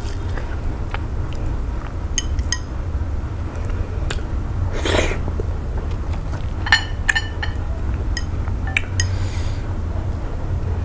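Close-up eating sounds from eba with slimy okro-melon soup eaten by hand: scattered wet mouth clicks and smacks, with one short slurp about five seconds in, over a steady low hum.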